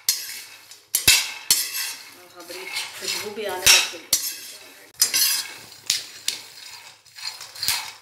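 Metal spatula stirring and scraping raw peanuts around a dry metal kadhai, the nuts rattling against the pan as they dry-roast with no oil. Sharp metallic clinks of the spatula striking the pan come irregularly, about once a second.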